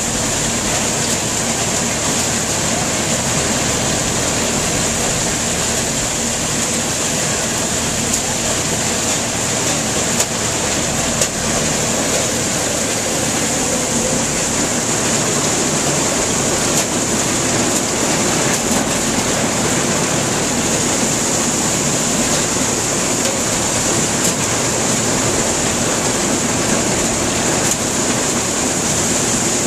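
Antique corn sheller running, its chain elevator carrying ears of corn up: a steady, dense mechanical rattle and rush, with a couple of sharper clacks near the middle.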